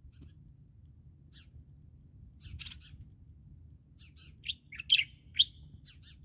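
Small birds chirping: scattered short, high chirps, with a quick run of louder ones about four to five seconds in, over a steady low background rumble.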